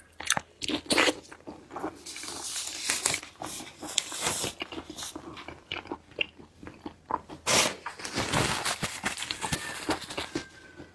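Close-miked eating of seafood: crunchy bites and chewing, with many sharp crackles and a few louder crunches.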